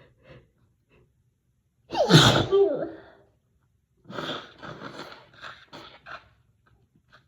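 A woman's single loud, high-pitched sneeze about two seconds in, induced rather than natural, after a couple of faint quick breaths. About six short breathy bursts follow over the next two seconds.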